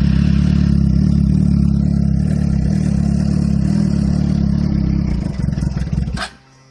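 Suzuki GSX-R inline-four motorcycle engine running just after a cold start, holding a low, uneven idle instead of the usual high start-up idle. It wavers and then cuts off suddenly about six seconds in. This is the rich-smelling cold-start fault that the owner suspects comes from the fuel pump not priming.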